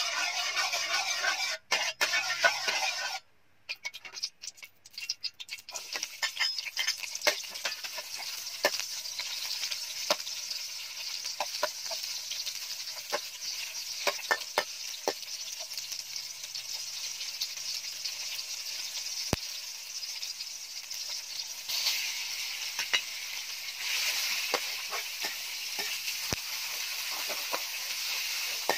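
Garlic and chillies frying in hot oil in a thin metal wok, stirred with a metal spatula that scrapes and clicks against the pan over a steady sizzle. The sizzle grows louder a little past two-thirds of the way through.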